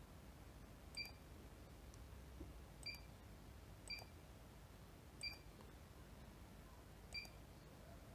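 Faint short high-pitched beeps from a Schneider HMI STW6 touchscreen, five of them one to two seconds apart, one for each key tapped on its on-screen keyboard.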